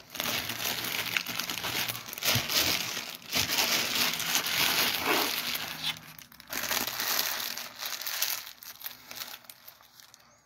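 Close, continuous crinkling and rustling, with a short break about six seconds in, tailing off near the end.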